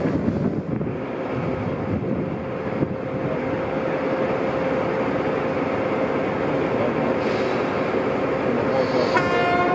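DR class 132 'Ludmilla' diesel locomotive with its engine running steadily. About nine seconds in, a locomotive horn starts sounding a single held note.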